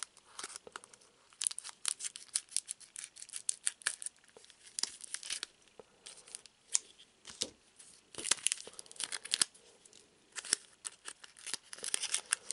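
Scissors cutting across the top of a foil trading-card booster pack, the foil wrapper crinkling as it is handled and pulled open. The crackles and snips come in clusters with short pauses between them.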